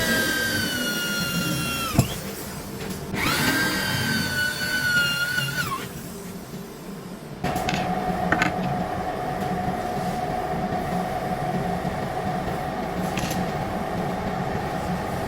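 A power tool motor whines in two bursts of a few seconds each, its pitch sagging toward the end of each burst as if under load. From about halfway in, a steadier, lower-pitched motor runs.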